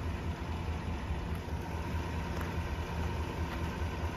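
Pickup truck's V8 engine idling steadily, a low even hum.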